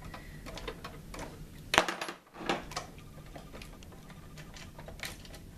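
Scattered small metal clicks and taps of a little screwdriver working the rusty screws out of a sewing machine's metal needle plate, the sharpest click about two seconds in.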